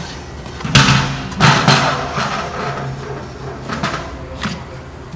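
Empty 5-gallon plastic pail knocking against a steel drum and the drum pump as it is handled: two loud knocks about a second in, then a few lighter taps.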